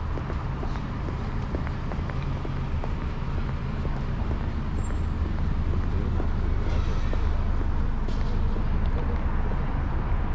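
City street traffic: a steady low rumble of passing cars, getting a little louder about halfway through.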